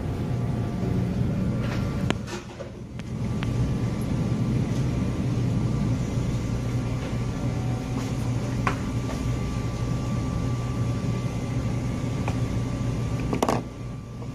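Steady low mechanical hum of indoor machinery, with a few faint clicks and two brief dips where the sound drops away.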